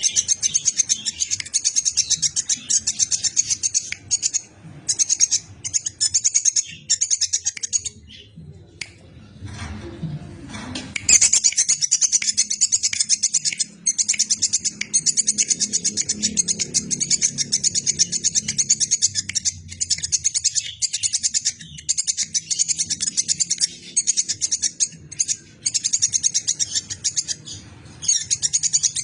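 Squirrel (tupai) giving long runs of rapid, high-pitched chirping calls, with a pause of a few seconds about a third of the way in.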